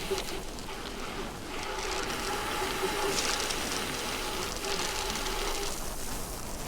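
Steady rush of air and tyre noise from a road bike descending at speed, with a faint steady hum under it.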